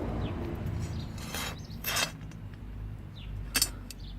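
Handling noises from a vintage chainsaw being moved about: three short rubbing, clicking scrapes, about one and a half, two and three and a half seconds in, over a faint low hum.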